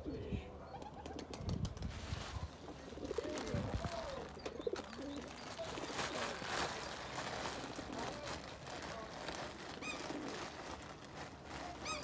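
Feral pigeons cooing, a series of low, rounded, wavering coos, with scattered light taps and a few high chirps near the end.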